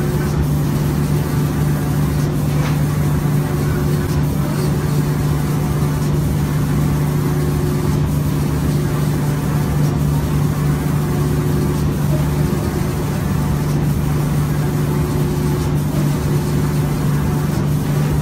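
Five-axis automatic door spraying machine and its spray booth running while the spray head coats a wooden door: a loud, steady low hum. Faint clicks come about every two seconds.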